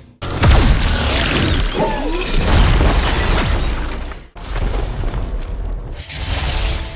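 Film sound effects of Electro's electric blasts: crackling electrical zaps over deep booming rumble, with pitch sweeps through the first stretch. They play as separate clips that cut off abruptly a little past 4 seconds in and change again about 6 seconds in.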